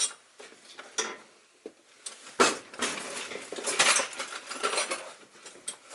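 Small hard objects, likely metal, clinking and rattling as they are handled and rummaged through. There are a few light clicks at first, then a sharp knock about two and a half seconds in, followed by a few seconds of busy clattering.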